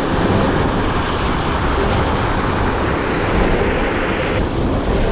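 Steady rushing noise of river water mixed with wind buffeting the microphone, with the higher part of the hiss dropping away about four and a half seconds in.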